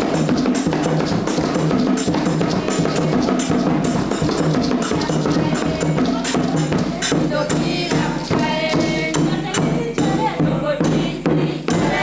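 Music with a steady, busy percussion beat.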